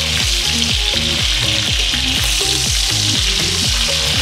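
Pork schnitzels and vermicelli frying in hot oil in pans, a steady crackling sizzle. Background music with low notes changing several times a second plays underneath.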